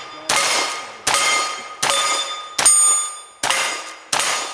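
Six gunshots in steady succession, about one every three-quarters of a second. Each is followed by the ring of a struck steel target, and the ringing pitch changes from one plate to the next.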